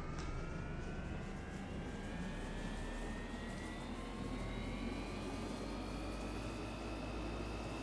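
Steady engine drone with whining tones slowly rising in pitch.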